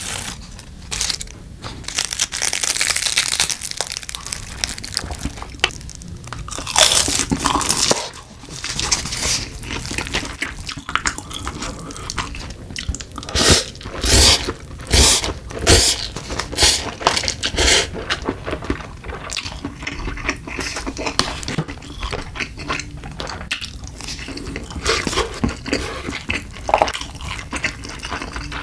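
Close-miked eating: slurping Buldak spicy stir-fried instant noodles off chopsticks and chewing, with crunchy bites, irregular and on and off.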